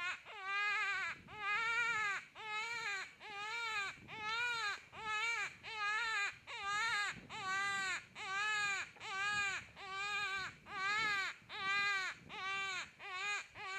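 Jackrabbit Deluxe predator hand call blown in a series of wailing, crying notes that imitate a jackrabbit in distress to lure in a coyote. The notes repeat evenly, about three every two seconds, each rising and falling in pitch.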